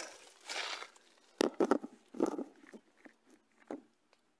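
Dry leaves and brush crunching in a handful of short, irregular bursts, loudest about a second and a half in, then thinning out to near quiet at the end.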